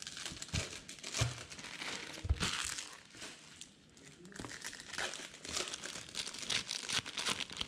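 Trading-card pack wrappers from 2020 Topps Series 1 baseball hobby boxes crinkling and tearing as packs are ripped open by hand.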